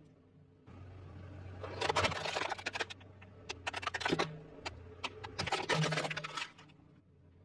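Plastic housing of a clothes iron cracking and crunching under a slowly rolling car tyre, in several bursts of crackling snaps over a low steady hum.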